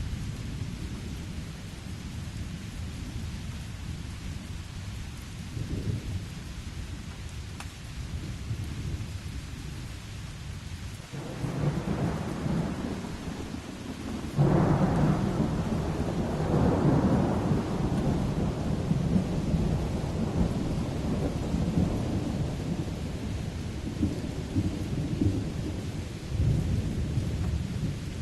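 Steady rain with thunder. A low rumble builds about eleven seconds in, then a sudden, louder peal about halfway through rolls on for several seconds before easing, and another rumble swells near the end.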